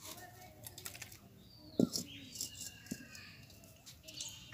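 Clinks and knocks of metal cooking utensils as an iron kadhai (wok) is emptied and set back on a clay wood-fired stove, with one louder knock about two seconds in. A few faint bird chirps can be heard.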